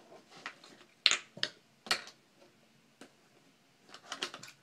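A few sharp clicks and taps of small makeup containers being picked up and set down on a counter, then a quicker run of small clicks near the end as a tube is handled.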